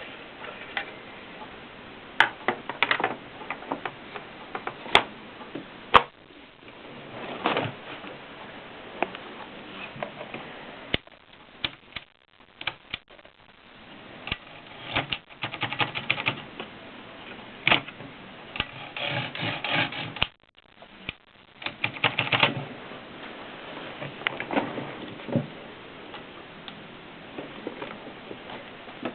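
Olivetti Lettera DL portable typewriter being typed on: irregular sharp key strikes, some single and some in quick runs, separated by short pauses.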